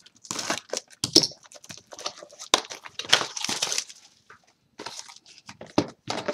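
Plastic shrink wrap crinkling and being torn off a trading-card booster box, in irregular crackles and rustles with small handling clicks and a brief pause near the middle.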